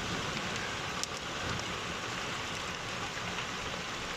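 Steady downpour of heavy rain with hail: an even hiss with a few sharp ticks, one about a second in.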